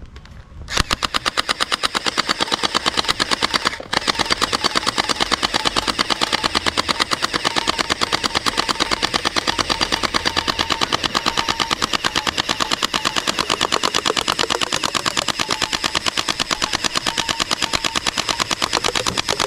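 Toy Thompson-style machine gun with a drum magazine firing on full auto: a rapid, even rattle of shots that starts about a second in, breaks off for an instant near four seconds, then keeps going steadily.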